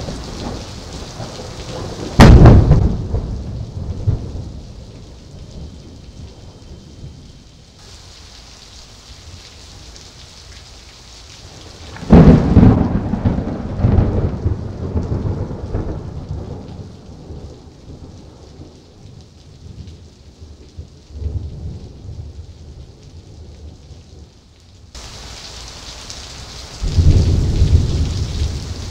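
Loud thunder from close cloud-to-ground lightning: a sudden sharp crack about two seconds in and another about twelve seconds in, each rolling into several seconds of low rumbling. Heavy rain hisses steadily throughout, and a lower rolling rumble builds near the end.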